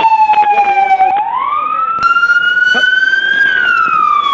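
Police car siren wailing: the tone falls slowly, swings back up about a second in, keeps climbing until past three seconds, then falls again.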